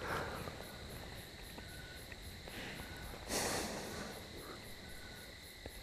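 Quiet outdoor ambience with a faint steady high-pitched tone and a few faint short chirps, and a brief rustle about three and a half seconds in.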